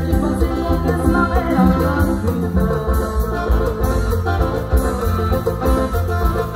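Live regional Mexican band playing through a PA: electronic keyboards with an organ-like sound over drum kit and bass, with a male singer on a microphone.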